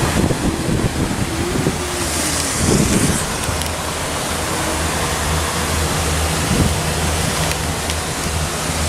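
Wind buffeting the microphone in a steady rush, with a low, even hum underneath, aboard a moving cable car gondola.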